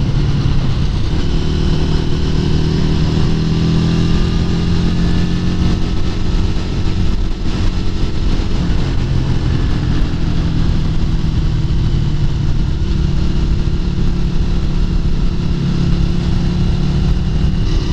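A 1996 Yamaha SRV250 Renaissa's air-cooled 250 cc V-twin running steadily at riding speed on a circuit, with a constant rush of wind noise over it.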